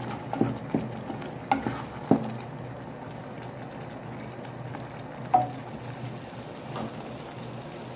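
Wooden spoon stirring thick lentil daal in a stainless steel pot, knocking against the pot a few times in the first two seconds, over the low steady bubbling of the simmering daal. One more knock about five seconds in as the spoon is set down in a frying pan.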